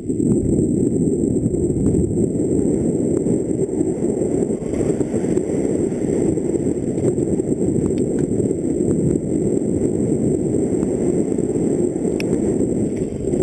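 Mountain bike descending a dirt trail at speed: a loud, steady rush of wind buffeting the camera microphone mixed with tyre rumble, with a few small clicks and rattles from the bike.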